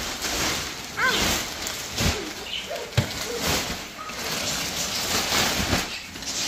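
Thick plastic wrap rustling and crinkling as it is handled and pulled off a foam mattress, with a couple of sharp knocks about two and three seconds in.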